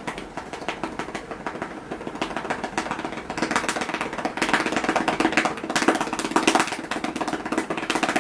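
A hand patting a long-haired cat's rump in quick, repeated pats: an even rapid rhythm that grows louder about three and a half seconds in.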